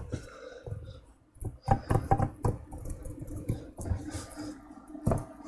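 Scattered light knocks and clicks, irregular and close together, over a faint steady hum.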